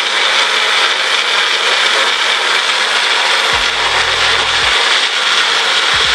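Electric countertop blender running steadily at speed, chopping chunks of green apple and celery in a little water.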